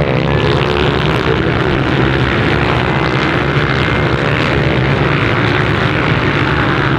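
A pack of motocross dirt bikes racing, many engines running at once, their pitches rising and falling as the riders throttle on and off.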